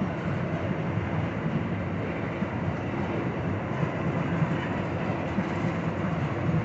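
Freight train of tank cars hauled by two GE ES44 diesel locomotives going by on an upgrade: a steady, heavy rail noise with most of its weight low down and no breaks.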